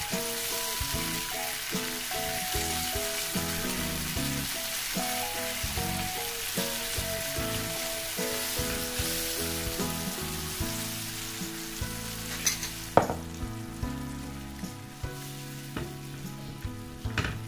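Garlic-and-chili sauce sizzling and bubbling in a ceramic non-stick frying pan as a silicone spatula stirs it. The sizzle dies down a little about three quarters of the way through. Two sharp knocks of the spatula against the pan come then and again at the very end.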